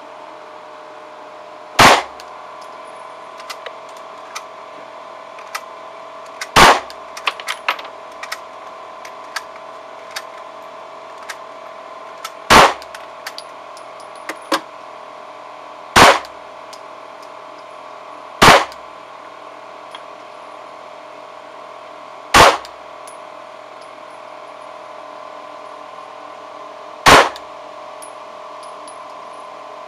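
Glock 17 9 mm pistol fired seven single shots, a few seconds apart and at uneven intervals. Faint clinks come between the early shots over a steady hum.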